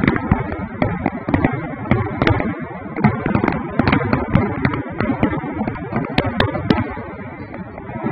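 Aerial fireworks bursting: a dense, irregular run of bangs and crackles, with a few sharper cracks about six seconds in.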